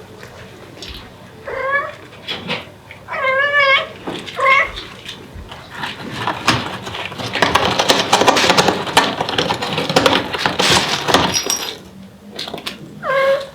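Devon Rex mother cat calling for her kittens: three wavering meows in the first few seconds, followed by a long stretch of scratchy, clicking noise through the middle.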